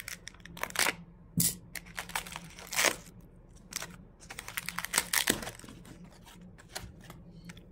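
Foam packaging sheet crinkling and rustling in irregular short bursts as it is handled and pulled off the crossbow limb.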